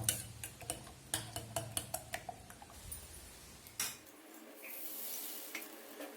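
Utensil clinking against a bowl in a run of quick irregular strokes. About four seconds in it breaks off, and a steady soft hiss of frying on a hot pan takes over.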